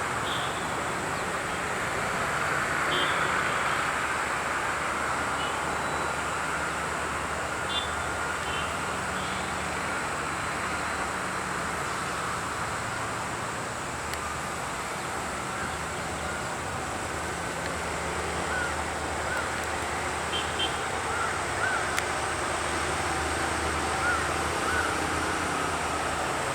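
Steady outdoor vehicle and engine noise, with a few faint short chirps and blips over it.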